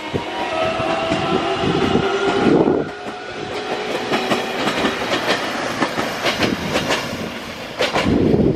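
JR Kyushu 813 series electric multiple unit accelerating away from a station stop: its traction motors give a whine that rises slowly in pitch, then the wheels click over the rail joints as the cars pass close by. A louder low rush comes near the end.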